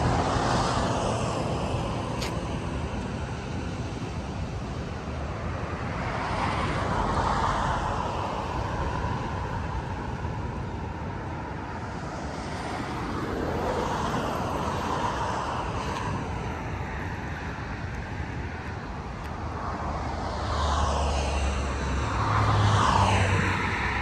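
Sea surf breaking and washing up a sand beach, the rush swelling and fading about every seven seconds over a steady low rumble.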